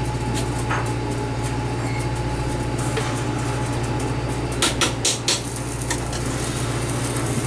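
Steady low drone of the boat's engine running underway, heard from inside the galley. A few short clinks of a serving spoon against the pot and plates come a little past halfway.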